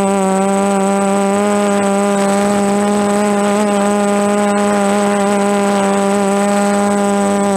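The DJI F330 quadcopter's four brushless motors and propellers whining in flight, a loud, steady pitch that wavers only slightly as the throttle shifts.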